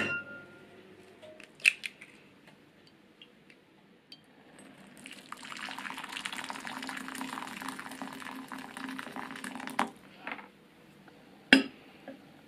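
Hot water poured from an electric kettle into a glass bowl, a steady splashing pour lasting about four and a half seconds. A few sharp clinks of glass bowls come before it, and a loud knock near the end as a glass bowl is set down into another.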